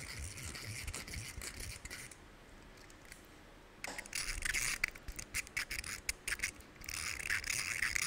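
Crinkly plastic wrapper of a piece of candy being squeezed and rubbed between the fingers right at the microphone, a dense crackle of fine clicks. It goes quieter for a moment about two seconds in, then comes back louder from about four seconds in.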